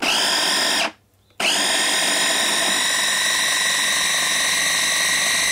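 Kenwood mini food chopper's electric motor and gear drive, pulsed once for under a second, then run for about four seconds. Each time it spins up quickly into a steady, high-pitched, screamy whine. The blade is now turning, with the drive engaging after a repair to its worn motor gear wheel.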